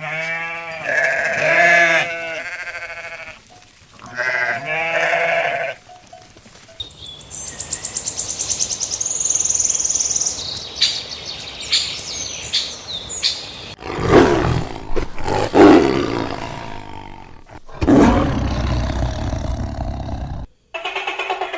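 A farm animal bleating: two long, wavering bleats. Later come high chirping and then louder, rougher animal calls near the end.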